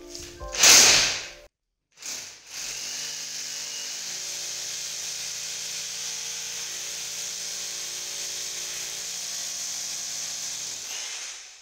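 A brief loud burst, then after a short break a DEKO rotary hammer with a 68 mm core bit runs steadily, boring into a concrete wall, and winds down near the end. By the owner's account the bit only gnaws through the plaster here.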